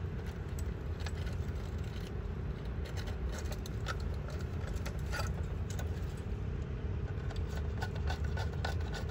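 Small scattered clicks and scrapes of a wire being worked back into a terminal lug inside a metal air-conditioner disconnect box, over a steady low hum.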